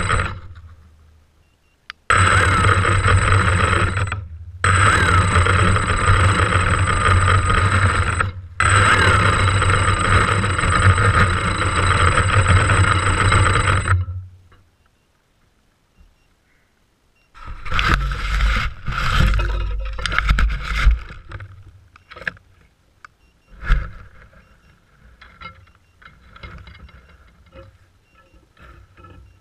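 Phantom quadcopter's motors and propellers spinning steadily at low speed while the drone sits in grass, a high steady tone over a low hum. The sound cuts out briefly twice and stops about 14 seconds in. Afterwards come rustling, handling noises and a single thump about 24 seconds in as the drone is shifted in the grass.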